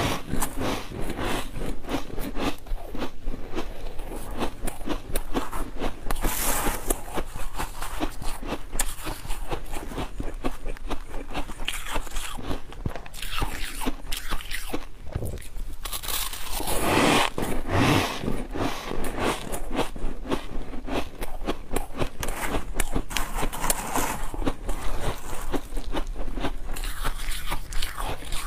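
Close-miked biting and chewing of soft freezer frost: a dense, continuous run of crisp crunches.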